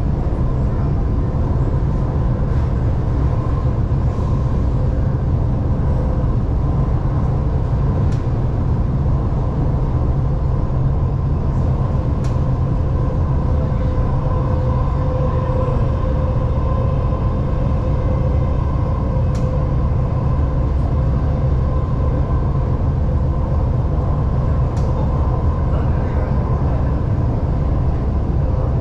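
Shanghai Metro Line 2 train running at speed, heard from inside the carriage: a steady low rumble of wheels on rail with a steady whine over it, and a few faint clicks.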